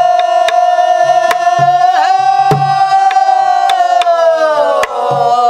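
Pansori singing, one long held note with a slight waver that sags near the end, over a soribuk barrel drum. The drum gives sharp stick clicks and deep palm thumps on its head in a slow, uneven beat.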